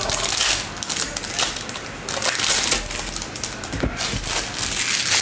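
Crinkling and tearing of a trading-card pack's foil wrapper being opened up close, mixed with the rustle and slide of cards being handled, in irregular crackly bursts.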